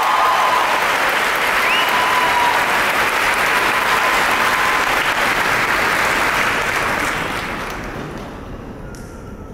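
Large crowd of an arena audience applauding, with a few cheers early on, the clapping dying away about eight seconds in.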